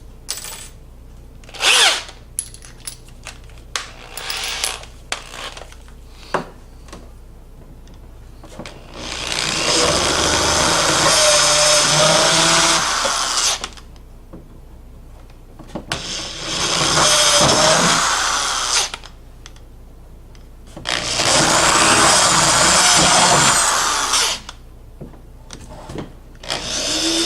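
Power drill boring holes with a larger bit after pilot holes. Scattered clicks and knocks of handling come first, then three runs of drilling a few seconds each, with the motor's pitch wavering under load. A fourth run starts near the end.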